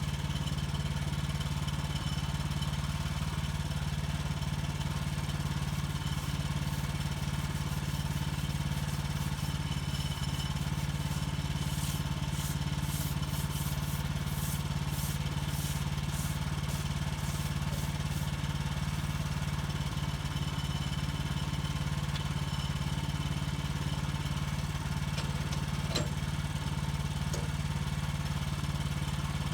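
Gas engine of a portable bandsaw sawmill running steadily at a constant speed.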